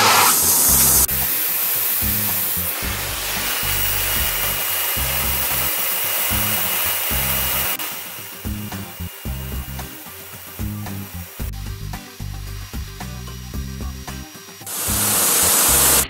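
Portable band sawmill's blade cutting through a ponderosa pine log, a steady rasping noise that drops abruptly about halfway through and swells again near the end, over background music with a stepping bass line.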